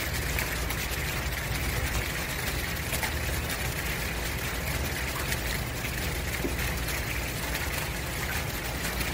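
Steady background noise: a low hum under an even hiss, with no distinct events.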